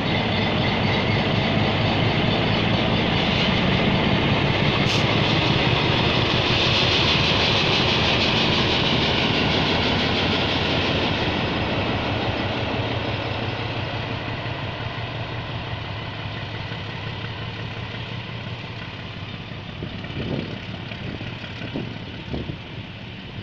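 ALCo RSD39 diesel-electric locomotive running under power as it pulls a passenger train out of the station, loudest while it passes close by and then fading after about ten seconds as the coaches roll past. A few short knocks near the end.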